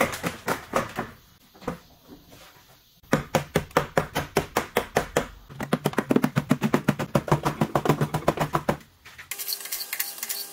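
Hammer blows on a rusted steel wheel arch: a few scattered knocks, then a regular run at about four a second, quickening to about six a second. Near the end the hammering stops and a steady hiss takes over.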